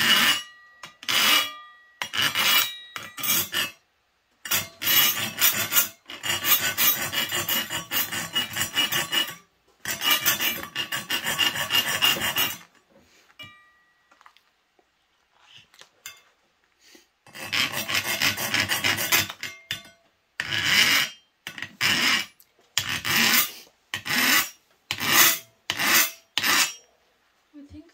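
Hand file rasping along the edge of a thin cut-steel flower blank held in locking pliers, cleaning up the cut edge. Quick runs of strokes come first, then a pause of about four seconds about halfway, then single strokes roughly once a second.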